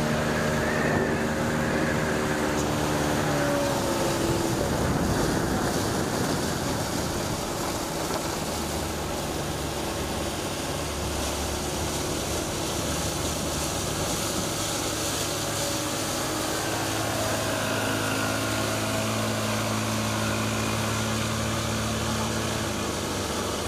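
Speedboat outboard motors running at speed over a steady rush of wind and water. The engine pitch sinks over the first few seconds and rises again later.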